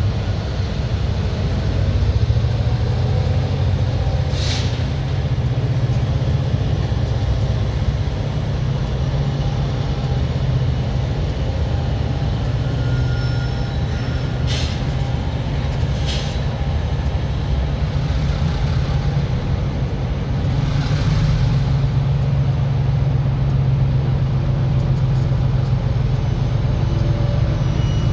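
Diesel locomotive rumbling steadily at idle, with a freight train rolling past, and a few short hisses of air about four seconds in and twice more around the middle.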